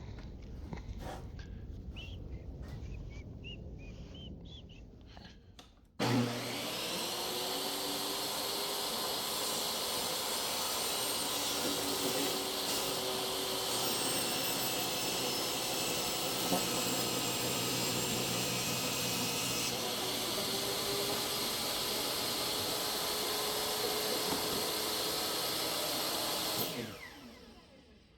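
Electric power saw starts abruptly about six seconds in, runs steadily for about twenty seconds while cutting a replacement window panel, then winds down near the end. Before it starts there is a quieter, fading mixed noise.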